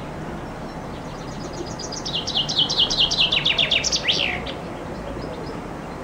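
Common chaffinch singing one song: a rapid run of repeated downward-sweeping notes that starts faint about a second in, grows loud, and ends in a quick descending flourish about four seconds in. A steady low background noise lies under it.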